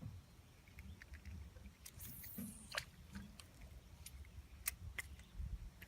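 Faint handling noises: scattered short clicks, taps and rustles over a low rumble, the sharpest clicks near the middle and towards the end.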